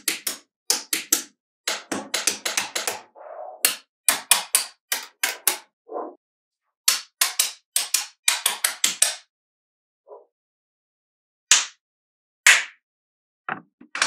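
Small magnetic balls clicking together as slabs and bars of them are snapped into place, in quick clusters of sharp clicks, with a pause of about two seconds in the latter part and a few single clicks after it.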